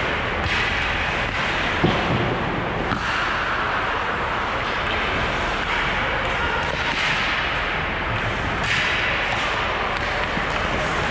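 Ice hockey play on the rink: skate blades carving and scraping the ice, with a sharp knock about two seconds in and further scrapes near the middle and end.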